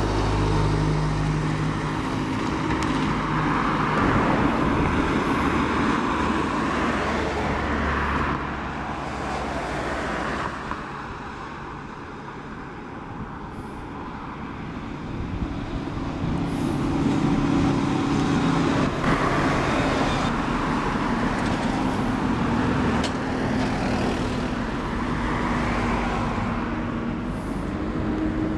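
Single-decker diesel buses and other road traffic passing close by, engines running over tyre and road noise. It is loud as a bus sweeps past at the start, dies down about ten seconds in, then swells again as the next bus and the cars behind it come up.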